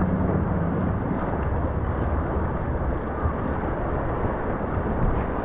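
Steady rushing of river water around a paddled raft in a rapid, with wind buffeting the microphone.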